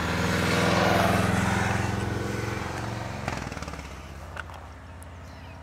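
An engine running steadily, loudest about a second in and then gradually fading.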